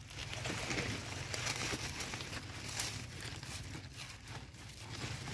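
Rustling and faint crackling of leaves and stems as a hand pushes through dense plants.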